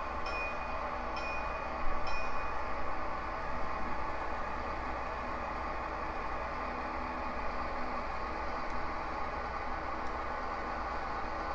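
Sound-equipped HO scale model diesel locomotive running steadily, its bell ringing about once a second and stopping about two and a half seconds in. A brief louder clunk comes about two seconds in.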